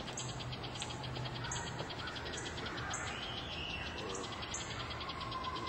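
Insects chirping outdoors: a short high chirp about every three-quarters of a second over a fine fast trill, with a faint bird call or two in the background.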